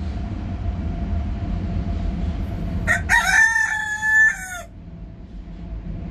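A rooster crows once, a call of about a second and a half starting about three seconds in, held steady and then falling away at the end. A steady low rumble runs underneath.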